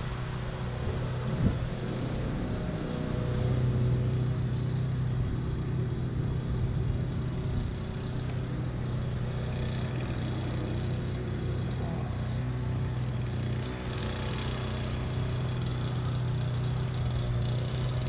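Parrot Bebop 2 quadcopter's motors and propellers humming steadily as it flies, a little louder about three seconds in, with one short knock about a second and a half in.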